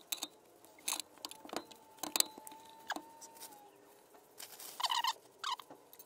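Scattered light clicks, taps and scrapes as a Triumph Stag clutch pressure plate is handled with nitrile-gloved hands and positioned against the flywheel, with a faint steady whine for a couple of seconds in the middle.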